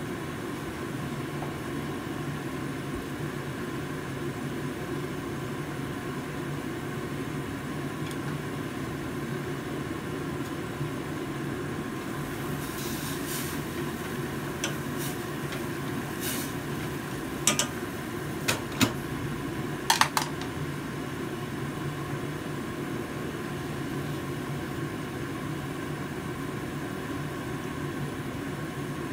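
A steady hum from the gas stove and kitchen runs throughout. About halfway through, the glass lid comes off a stainless-steel soup pot, the simmering soup hisses openly and is stirred with chopsticks. A few sharp metallic clinks against the pot follow, the last pair ringing as the lid goes back on.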